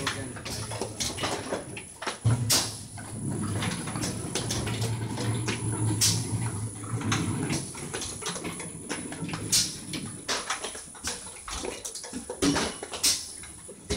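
Conveyor-fed sticker-labelling machine running, its label applicator and conveyor making irregular sharp clicks and clatter as cartons pass through. A low hum joins in from about two seconds in and stops around seven seconds.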